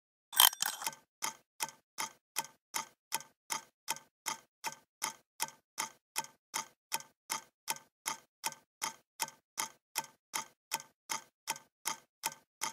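Steady clock-like ticking, about three ticks a second, after a brief louder cluster of clicks just after the start.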